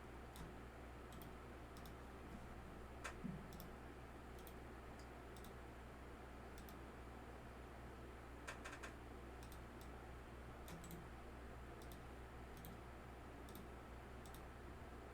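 Near silence: a steady low hum with scattered faint clicks, a small group of them about three seconds in and another about eight and a half seconds in.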